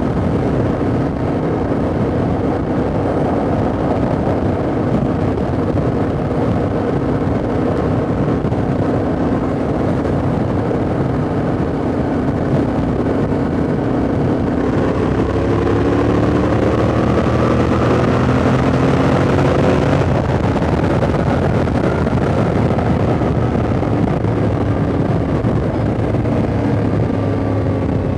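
Yamaha Ténéré 700's 689 cc parallel-twin engine running under way, with wind and road noise. About halfway through its pitch climbs steadily as the bike accelerates. About two-thirds of the way in the throttle is eased and the pitch falls.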